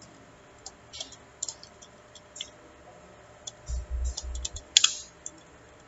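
Computer keyboard typing: scattered, widely spaced key clicks, the loudest near the end, with a brief low rumble about two-thirds through.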